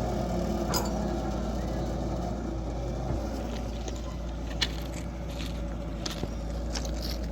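Diesel-electric locomotive engine idling with a steady low hum, with a few sharp clicks and taps over it.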